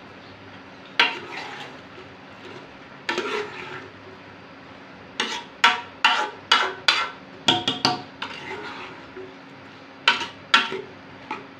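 A metal spoon stirring chicken mince in a pressure-cooker pot, clinking and scraping against the pot's metal sides. There are single strokes at first, then a quick run of strokes for a few seconds in the middle, and a few more near the end.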